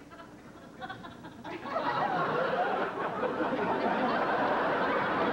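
Studio audience laughter, swelling up about a second and a half in and holding steady.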